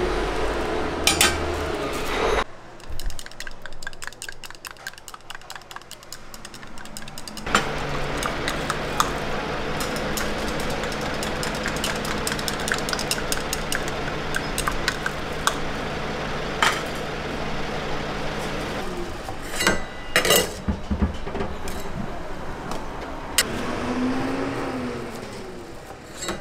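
Griddle cooking: metal egg frames clink and scrape on a steel griddle. Through the middle, a steady hiss with a low hum runs as egg mixture is poured into the frames and sizzles. Sharp clinks of metal on metal come and go throughout.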